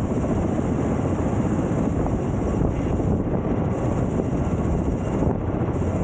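Wind buffeting the microphone: a steady, rough rushing noise, heaviest in the bass, with no clear engine tone.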